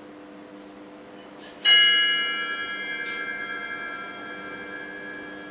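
A bell struck once, about a second and a half in, ringing on with several clear tones and fading slowly: the signal for the priest's entrance at the start of Mass. A steady low hum runs underneath.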